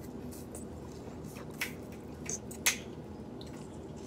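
Eating crab legs by hand: a few short, sharp clicks and wet, squishy sounds of shell and meat at the mouth, the loudest click coming a little past halfway, over a steady low hum.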